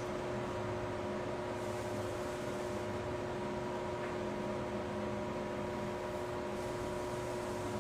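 Steady machine hum with a constant hiss and a few unchanging tones, like an appliance or fan running; no distinct events.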